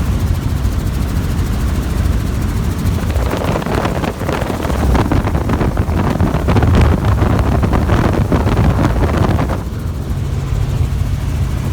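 Helicopter rotor and engine drone, steady and low, heard from the cabin. From about three seconds in to near the end a louder rushing noise with rapid flutter rides over it, then drops away.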